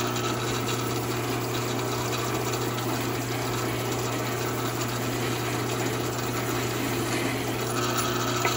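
Drill press running a drum sanding attachment, with the metal threaded collar of a DeWalt screwgun held against the spinning drum and sanded down to size. A steady motor hum under a continuous rubbing grind.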